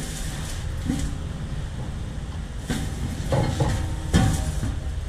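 Several knocks and clunks of steel being handled as a large steel silencer shell is worked on, the loudest about four seconds in, over a steady low workshop rumble.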